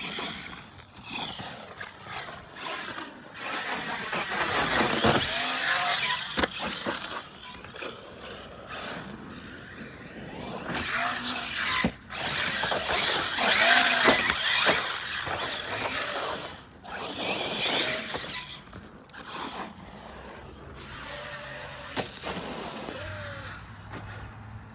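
Brushless electric RC off-road cars driving hard on a dirt lot: motor whine rising and falling with the throttle, tyres spraying dirt and gravel, and a few sharp knocks from landings and tumbles.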